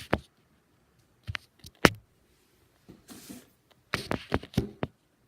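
Barn door hardware and parts being handled: a series of sharp clicks and knocks, the loudest a little under two seconds in, a brief rustle about three seconds in, and a quick cluster of knocks near the end.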